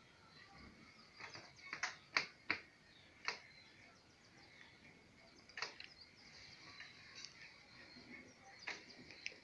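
Faint background bird chirping, with a few short, sharp chirps or clicks, several close together about two seconds in and more later.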